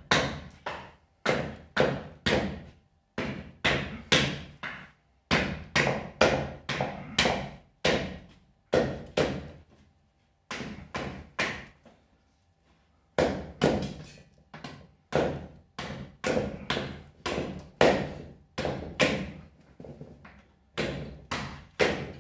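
A large bushcraft knife chopping into a wooden branch resting on a stump: a steady run of sharp chops, about two a second, with a short pause about halfway.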